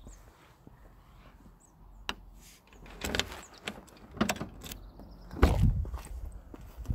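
Car door and interior fittings being handled: a series of sharp clicks and knocks, then a heavy low thump about five and a half seconds in, typical of the door being shut.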